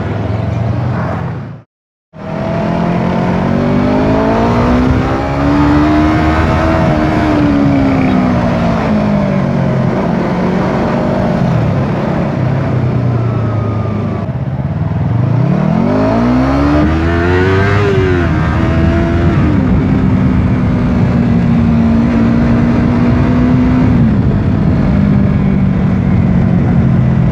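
Yamaha R25 motorcycle's 250 cc parallel-twin engine heard while riding. Its pitch climbs and falls twice as the bike accelerates and eases off, then holds steady near the end. The sound cuts out briefly about two seconds in.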